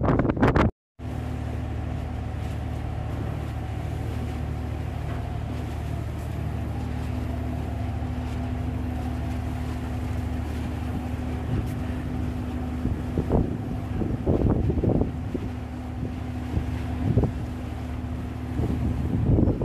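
A ship's engine machinery droning steadily, as several constant low hums. The opening moment is loud wind noise on the microphone that cuts off abruptly. After about two-thirds of the way through, a few gusts of wind buffet the microphone.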